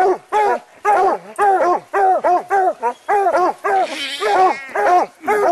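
Two coonhounds barking treed at the base of a tree, a rapid run of loud barks about three or four a second: the steady tree bark that signals they have a raccoon up the tree.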